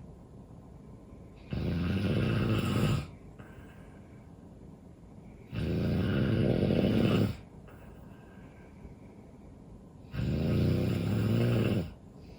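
A person snoring in sleep: three loud snores about four seconds apart, each lasting about a second and a half.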